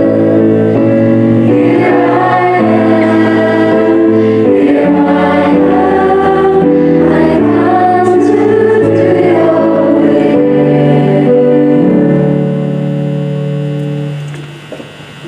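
Choir singing a sung responsorial psalm over held accompanying chords. The music fades out on a final chord near the end.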